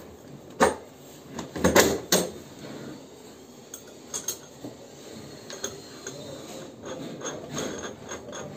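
Metal clinks and knocks of tools on the flange bolts of a PVC butterfly valve being fitted: a few sharp knocks in the first two seconds, then lighter scattered clicks.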